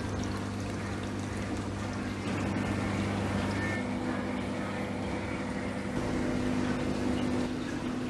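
Steady hum of reef aquarium pumps with running, splashing water, the hum shifting slightly about four seconds in.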